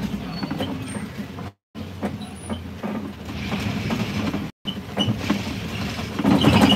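Safari truck driving along, its engine running low and steady under small rattles and knocks from the vehicle; the sound cuts out completely twice for a moment.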